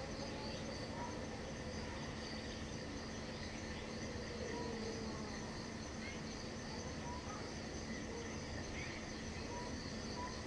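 Outdoor insects chirping steadily, with an even, pulsing high trill throughout. A few faint short chirps and a low steady hum lie underneath.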